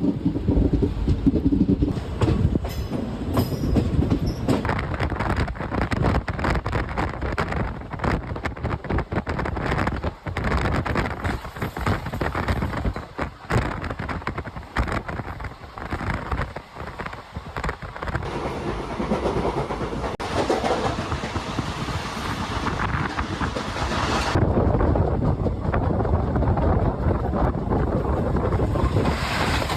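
Indian Railways express train running, heard from aboard the coach: the wheels clatter over the rail joints in dense, uneven clicks. About two-thirds of the way through, a steadier rushing hiss takes over for several seconds before the running noise settles back.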